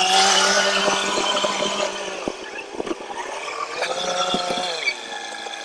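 A motor running at a steady pitch, loudest at the start and easing off, with several sharp knocks about two to three seconds in and a second tone that rises and dips around four seconds in.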